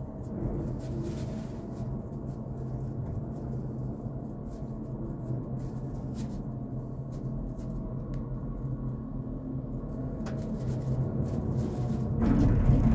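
Steady low hum of a cable car gondola riding along its cable, heard from inside the cabin, with a few faint clicks; a louder low rumble swells briefly just before the end.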